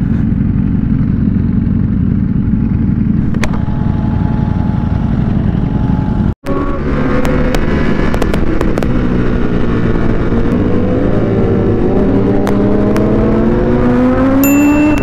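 Superbike engines heard from onboard a motorcycle: steady low running for about six seconds, a brief dropout, then the engine note climbing steadily in pitch as the bikes accelerate.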